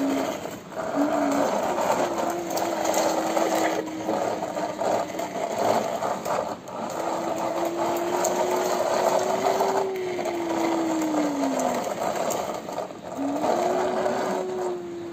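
Plastic toy police jeep rolled back and forth by hand on a hard floor, its wheels and gears whirring. A whine cuts in and out several times and rises and then falls in pitch with the pushing.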